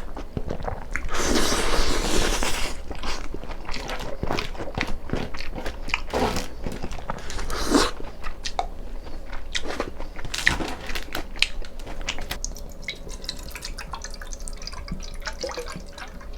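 Close-miked eating of noodle soup and rice: wet chewing and slurping with small utensil clicks, and one longer slurp about a second in.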